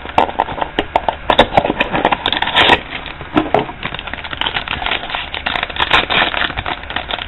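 A trading-card pack's foil wrapper crinkling and crackling as it is torn open and pulled apart by hand: a dense, irregular run of crackles that comes and goes in spells.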